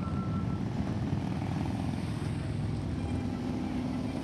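Engines of a large group of motorcycles riding in procession, a steady low rumble.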